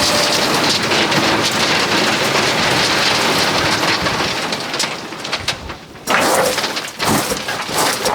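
Crushed stone pouring out of a tipped dump trailer, a loud continuous rushing rattle of gravel. It thins out about five seconds in, then two sharp clattering surges follow.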